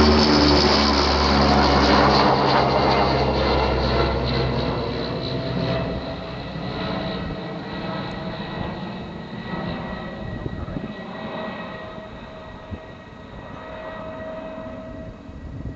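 The twin Rolls-Royce Dart turboprop engines of a Hawker Siddeley Andover C1 passing overhead and flying away. A loud, deep propeller drone fades over the first several seconds, leaving a steady high-pitched whine that dies away as the aircraft recedes.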